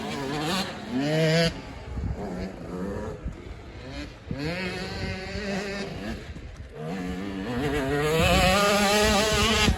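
Motocross dirt bike engines revving as the bikes accelerate past, their pitch climbing in several runs. The longest and loudest run comes near the end.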